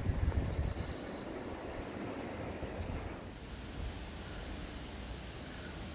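Outdoor ambience with a low rumble of wind on the microphone. About halfway through, a steady high-pitched buzz sets in and holds.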